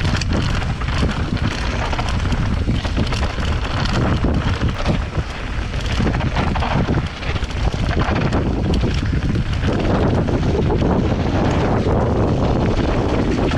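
Wind buffeting a GoPro Hero 8's microphone while riding a mountain bike, with constant rattles and knocks from the bike on the trail.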